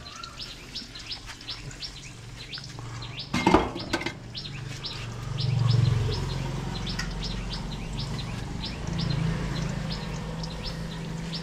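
A small bird chirping over and over, a few short high chirps a second. About three and a half seconds in there is a brief loud clatter, and a low hum swells and fades behind the chirps.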